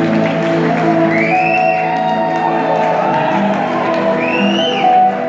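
Live rock band playing an instrumental passage, guitars and drums ringing out in a large hall, with a couple of whoops from the crowd, about a second in and again near the end.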